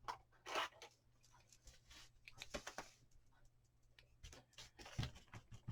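Faint swishing strokes of a paint pad spreading chalk paint across a wooden plank, a few soft strokes with small knocks of handling between.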